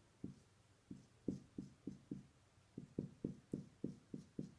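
Whiteboard marker drawing quick hatching strokes on a whiteboard, a faint short stroke sound about three times a second with a brief pause partway through.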